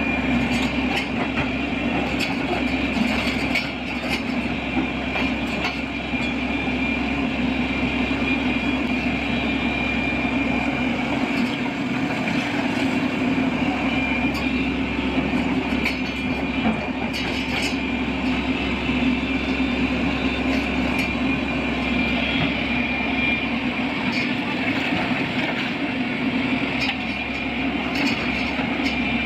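Heavy machinery running steadily: a low rumble with a constant high-pitched whine above it and occasional light clicks and knocks.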